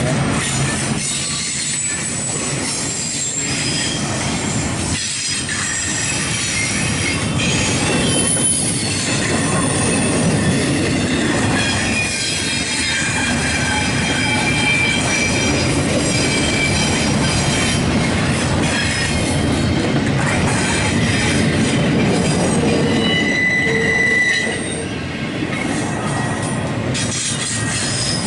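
Intermodal freight train cars rolling past on a curve, their wheels squealing against the rails in shifting high-pitched tones over a steady rolling rumble. The squeal comes from the wheels rounding the curve onto the leg of a wye.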